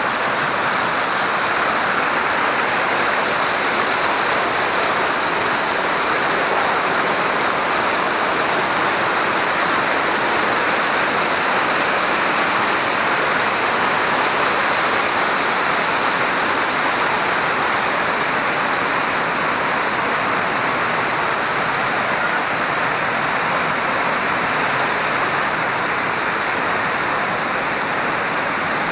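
Small waterfalls and cascades rushing white over mossy rocks close beneath a wooden boardwalk: a loud, steady rush of water.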